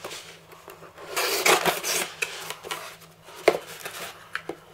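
Knife blade slicing and scraping through packing tape on a cardboard box in rasping strokes, with a sharp click about three and a half seconds in.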